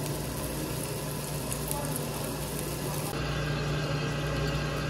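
Steady hiss with a low hum underneath; the sound changes abruptly about three seconds in.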